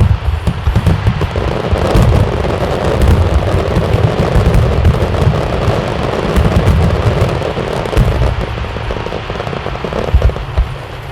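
Aerial fireworks bursting in a dense, rapid barrage: deep booms overlapping with crackling, with single louder bangs near the end.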